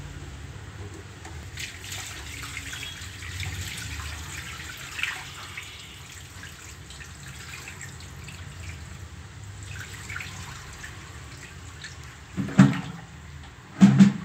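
Water splashing and running out of a tilted glass fish tank onto a tiled floor, a steady gush. Two short, louder sounds come a little before the end.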